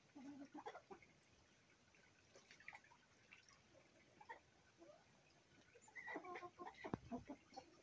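Domestic ducks giving soft, faint calls in two short bouts: briefly at the start, and again for about a second and a half from around six seconds in.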